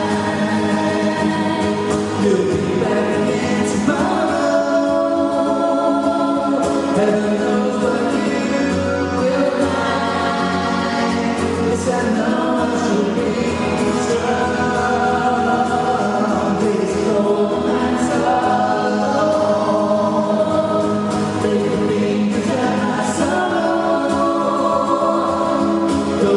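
Live band performing a song, with several voices singing together over the accompaniment.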